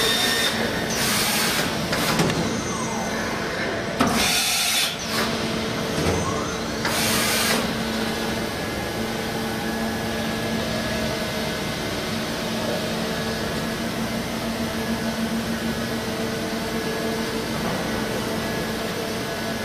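Matsuura MAM72-25V five-axis machining center running, with short bursts of hiss in the first seven seconds. A steady hum from the machine's drives comes in about six seconds in and holds.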